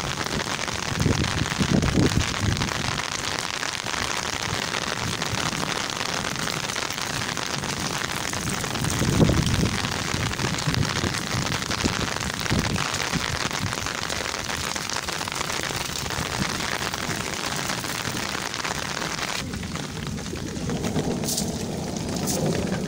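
Steady rain falling on wet, muddy ground: a dense, even hiss, with two low rumbles about two seconds and nine seconds in. Near the end the rain hiss drops away suddenly, leaving a quieter, lower sound with two brief high squeaks.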